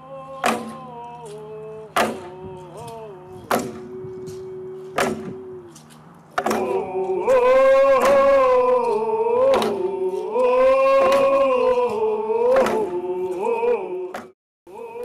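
Group singing to hide hand drums struck with beaters: slow, even drum strokes about every second and a half under a sung chant. The singing grows much louder about six seconds in and breaks off shortly before the end.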